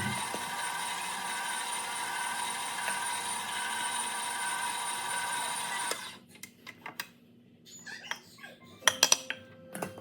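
An electric kitchen appliance's motor runs steadily with a faint whine and cuts off suddenly about six seconds in. A few sharp clicks and knocks follow, the loudest cluster near the end.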